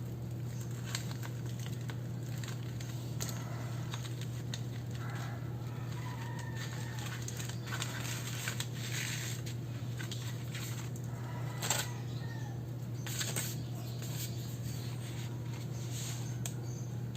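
Desk journaling sounds: short scratches of writing on paper and small clicks and taps from handling stationery, over a steady low hum. A few sharper ticks stand out near the end.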